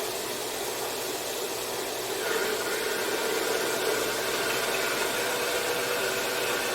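Harbor Freight (Central Machinery) 4x6 metal-cutting bandsaw running, a steady motor and blade noise. About two seconds in it grows a little louder and a higher whine joins, as the blade starts cutting the metal.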